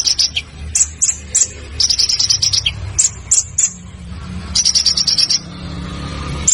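Songbird song in sharp, harsh phrases. Fast, dry rattling trills, about three of them, alternate with single piercing high notes, over a low steady hum.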